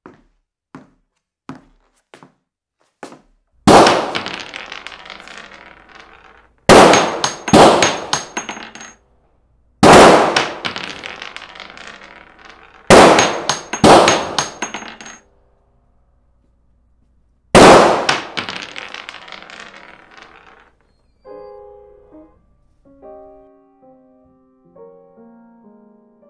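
A series of loud gunshot sound effects, single and in quick pairs a few seconds apart, each ringing out in a long echo. Soft, sparse piano notes come before them, and a slow piano melody takes over near the end.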